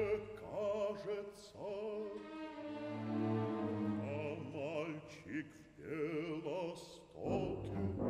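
Orchestral music with a voice singing in a wide operatic vibrato over sustained low strings. About seven seconds in, the orchestra comes in more fully with sharp attacks.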